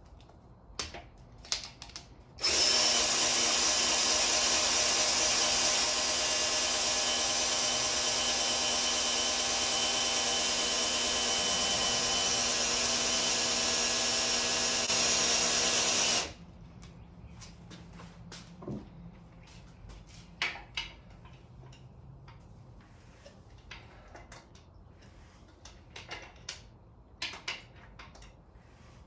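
Cordless drill running at a steady speed for about fourteen seconds, turning an oil-pump priming tool to push break-in oil through a newly built V8's oil system; it stops suddenly. Scattered light clicks and knocks of tool handling come before and after it.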